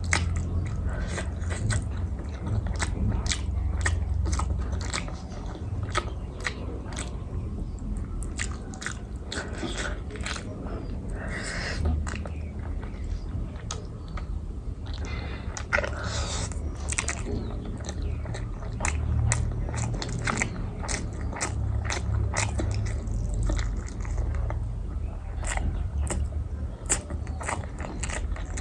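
A person chewing and biting food close to the microphone, with many small wet mouth clicks and occasional crunches.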